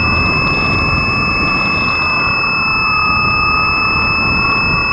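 RC airplane motor and propeller whining as heard from the onboard camera, the pitch drifting slowly down and up with throttle, over heavy wind rush on the microphone.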